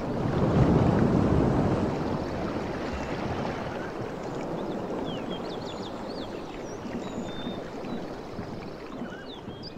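Rushing water, like a stream, swelling about a second in and slowly fading, with small birds chirping over it in the second half.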